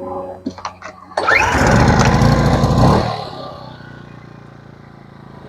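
AIVOLT 1600W inverter generator's small four-stroke engine starting. A few clicks come first, then it catches about a second in and revs up high for about two seconds. It then settles down to a steady, quieter running speed.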